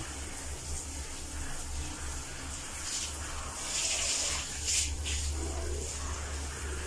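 Water from a handheld shower head spraying and splashing onto a small dog standing in a plastic bucket, the spray swelling louder a few times around the middle, over a steady low hum.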